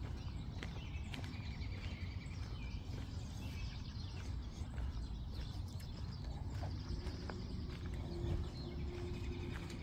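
Footsteps on a park path with small birds chirping in repeated short trills, over a constant low outdoor rumble; a faint steady hum comes in about seven seconds in.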